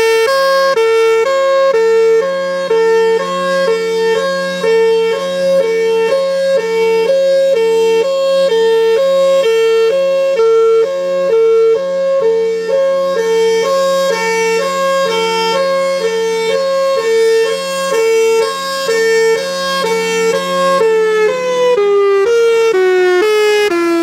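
Federal Signal Thunderbolt 1003 siren sounding its hi-lo signal: two close tones alternating steadily, about twice a second, over a steady low hum. About 21 seconds in, both tones start sliding downward together as the siren winds down at the end of the cycle.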